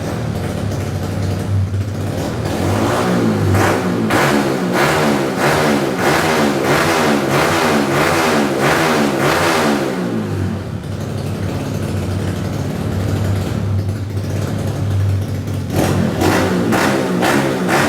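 Honda Wave 125 motorcycle with a fully modified MSX engine (58 mm, stroke +2) idling, then revved hard in quick repeated throttle blips for several seconds. It drops back to idle, and the blipping starts again near the end.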